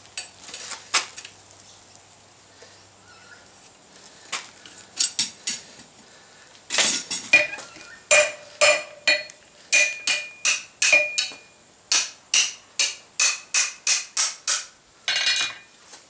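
Hammer striking steel: a few scattered knocks, then from about halfway a steady run of ringing blows, about two a second. The smith is working a freshly riveted mild-steel padlock action loose.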